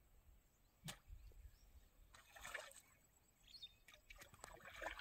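Faint splashing of water as a hooked eel is played on a fishing rod, with a sharp click about a second in.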